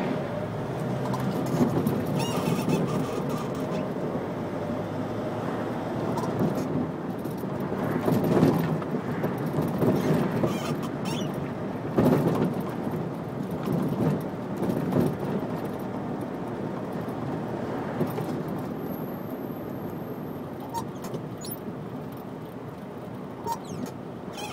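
Car driving slowly through city traffic: steady engine and road noise, with louder swells around eight and twelve seconds in.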